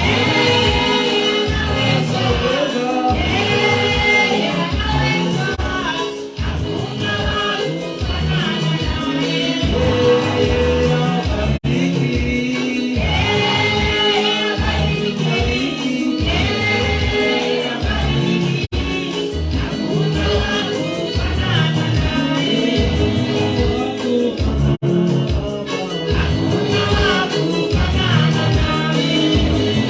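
Live gospel praise music with singers and a band, a steady driving beat and bass, tambourine-like percussion.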